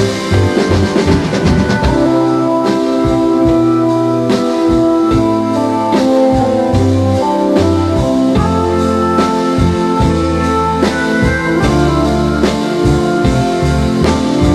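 Background music: an instrumental passage of a slow rock song, with drums on a steady beat under long held keyboard chords and bass.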